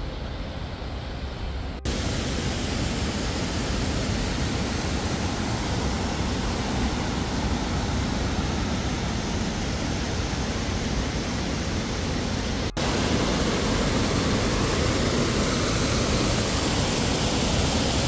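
Steady rush of a mountain stream tumbling over rocks, broken by two abrupt cuts, about two seconds in and again near thirteen seconds.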